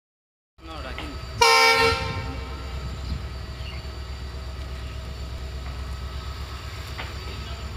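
WDG-4D EMD diesel locomotive sounding one short horn blast about a second in, the loudest thing here. Then its two-stroke diesel engine runs with a steady low throb as it notches up to pull away with a heavily loaded freight train.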